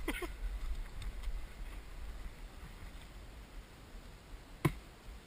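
Low rumble of wind on the microphone, with one sharp click or snap near the end.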